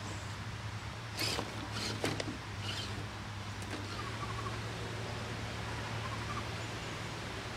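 Rustling and crackling of dry leaves and twigs on a forest floor, a few sharp crunches between about one and three seconds in, over a steady low hum. Faint high chirps follow later.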